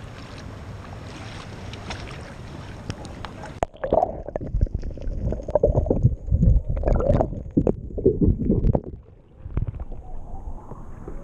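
Sea water and wind on a GoPro's microphone beside a kayak; about four seconds in the camera goes under the surface and the sound turns muffled and dull, with loud low sloshing and knocks of water against the camera housing, before it comes back up near the end.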